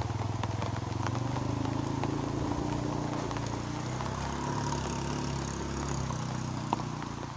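An engine running steadily at low revs, with an even, fast throb.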